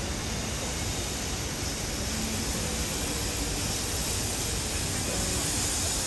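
Steady rushing of a waterfall in the gorge: an even, unbroken wash of water noise.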